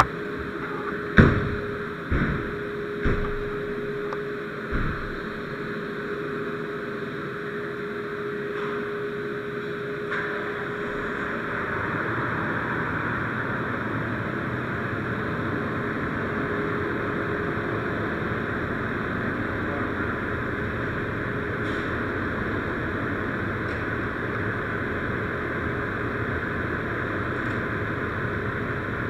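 Four heavy thumps in the first five seconds, then a fire engine's diesel engine running steadily as a drone that grows louder about ten to twelve seconds in, heard from inside the cab.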